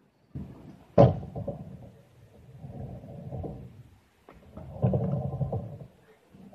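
Kick scooter wheels rolling over concrete skatepark ramps: a rattling rumble that swells and fades in several passes. A sharp clack about a second in, the loudest sound, is the scooter striking the concrete.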